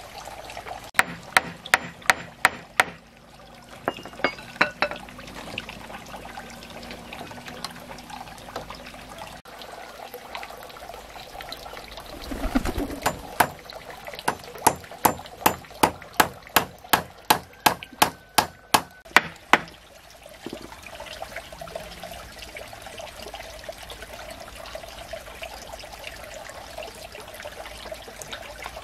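Sharp knocks, as of a tool striking wood or bamboo: a quick burst of about six near the start, a few more soon after, then a long even run of about three a second in the middle. Water trickles steadily underneath.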